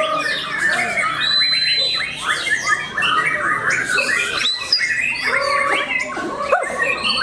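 Several caged white-rumped shamas (murai batu) singing at once in competition. Their loud, varied songs of rapid whistles, slurs and chirps overlap without a break.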